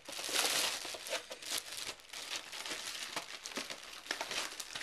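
Clear plastic bag crinkling as hands pull and crumple it: a dense run of crackles, loudest about half a second in.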